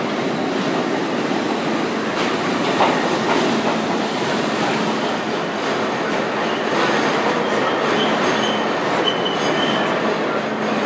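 Budd Company R32 subway train pulling into an underground station and rolling past, its wheels clattering over the rails. In the second half, short high-pitched squeals come from the wheels and brakes as it slows.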